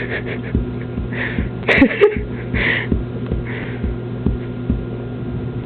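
A dog's wagging tail thumping softly and repeatedly against a cushion, about twice a second, over a steady electrical hum.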